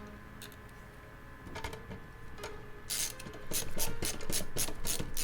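Power supply cables and connectors being handled and plugged into a PC: a quiet start, then a quick run of clicks and rubbing from about halfway through.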